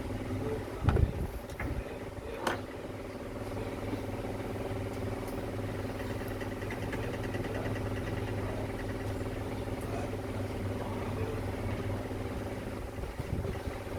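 A steady, low mechanical hum, engine- or motor-like, with a couple of sharp knocks about a second and two and a half seconds in.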